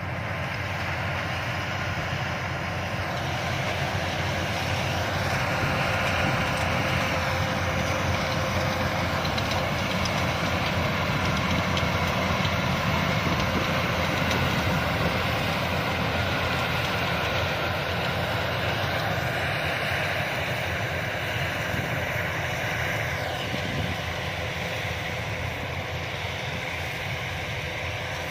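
Yanmar YH-850 combine harvester's diesel engine and machinery running steadily.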